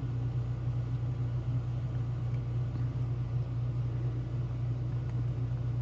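A steady low hum, with a few faint clicks from lock picks working a Mul-T-Lock Classic cylinder.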